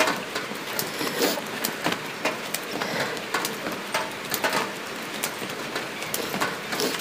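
Experimental soundscape: a steady hiss dotted with irregular clicks and crackles.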